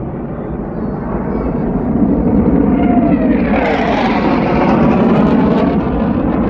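Jet noise from a fighter jet making a low pass overhead. It builds over the first couple of seconds, and the pitch falls as the jet goes by, about three and a half seconds in.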